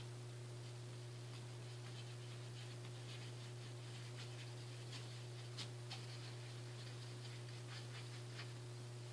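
Brush mixing paint on a paper plate: faint, irregular scratching and light ticks with two slightly sharper taps about halfway through, over a steady low hum.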